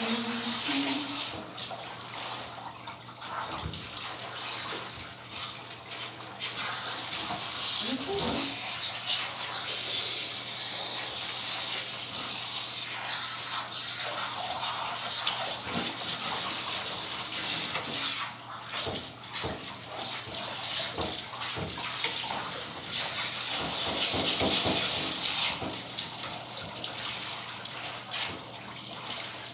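Water spraying and running in a grooming tub while a standard poodle is washed, a steady hiss that swells and dips as the spray moves over the dog and the tub.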